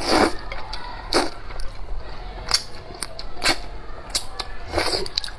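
A person slurping sweet potato glass noodles in a hot and sour broth. A long, loud slurp comes at the start, followed by shorter slurps and mouth smacks about once a second.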